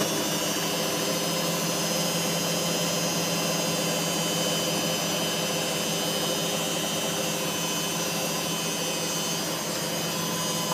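Candy GO DF800 washing machine drum spinning at high speed on its spin cycle with the door open: a steady motor and drum hum with a rush of air, holding an even speed.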